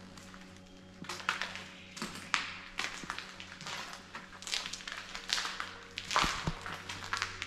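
Footsteps crunching and scuffing over rubble and debris, an uneven run of crackling steps and taps beginning about a second in, the loudest near the end.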